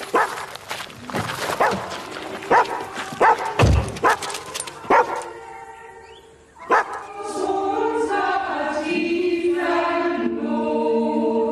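A dog barking in a quick series of short barks for about five seconds. It gives way to music of long, held chords with a choral sound.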